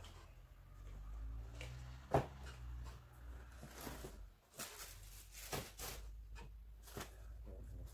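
Faint knocks, clicks and rustling of cardboard boxes and plastic packaging being handled, with the sharpest knock about two seconds in and a cluster in the second half, over a low steady rumble.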